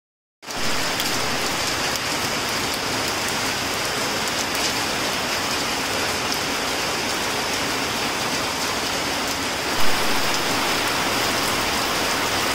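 Heavy rain pouring steadily, a dense crackling hiss that starts after a moment of silence and swells briefly about ten seconds in.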